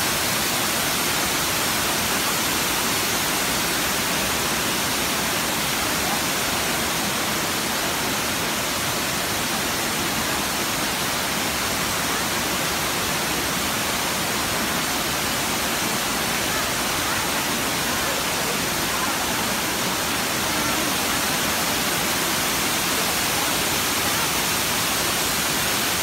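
Asik-Asik Falls: many streams of water pouring down a cliff into a rocky river, making a steady, even rush that never changes.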